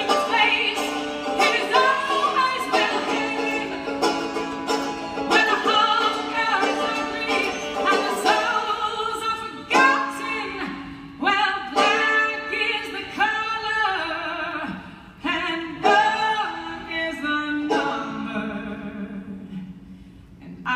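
Banjo picked live through an instrumental passage of a folk song, a steady run of plucked notes ringing out, easing down in level near the end.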